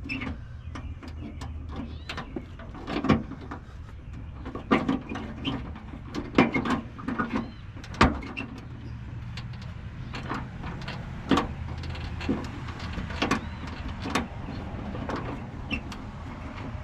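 Scattered metallic clicks and knocks as a ratchet and socket are worked onto a small nut in a cramped spot, over a steady low rumble.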